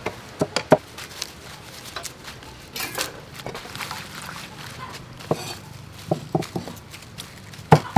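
Knife chopping on a cutting board in scattered strokes, then a quick run of chops near the end. Lettuce leaves rustle in a steel bowl about three seconds in.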